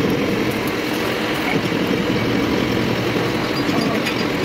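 Steady, rough mechanical running noise of workshop machinery, with a few faint ticks.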